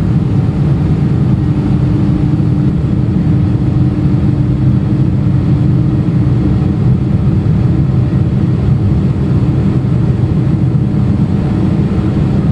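Airliner jet engines running at takeoff power: a loud, steady noise with a constant low hum.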